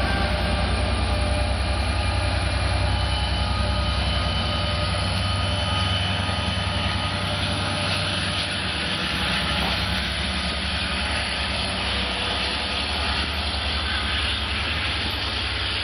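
LIRR DE30AC diesel locomotive pushing a departing passenger train past and away: a steady, loud diesel rumble with rail noise and a thin high whine, easing off slightly as it recedes and dropping near the end.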